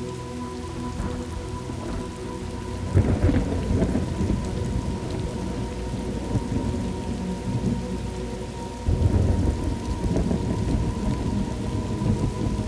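Thunderstorm ambience: steady rain with rolling thunder, two heavy thunder rumbles breaking in suddenly about three seconds in and again about nine seconds in.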